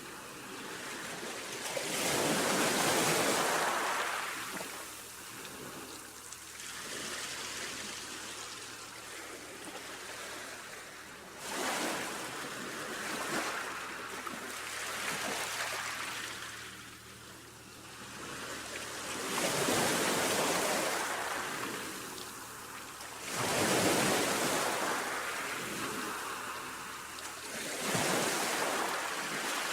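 Sea waves breaking and washing in, with five swells of surf and a softer hiss of water between them.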